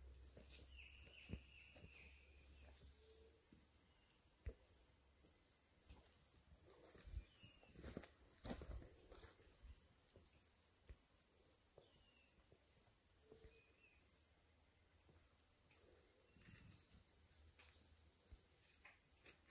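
Steady high-pitched insect chorus in a tropical forest, with a few faint short calls and soft knocks mixed in.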